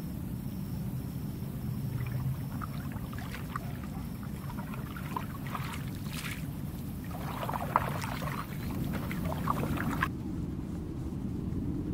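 Canoe paddle dipping and pulling through calm lake water: irregular splashes and drips that grow busier a few seconds in and stop abruptly near the end, over a steady low rumble.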